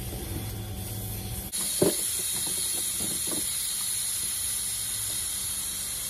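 Pressurized gas hissing steadily, switching on abruptly about a second and a half in, with a sharp click just after and a few light taps over the next second or two.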